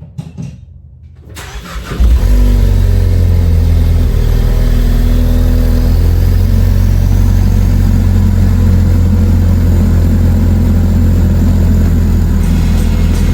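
A 2013–2018 Ford Focus ST's turbocharged 2.0-litre four-cylinder engine starting up about two seconds in, then running steadily with a deep exhaust note.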